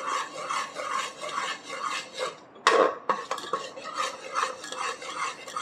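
A metal spoon scrapes and swishes around the inside of a pressure cooker, stirring rice flour into hot jaggery syrup for adhirasam dough. It keeps up a fast rhythm of about two to three strokes a second, with one louder knock against the pot about two and a half seconds in.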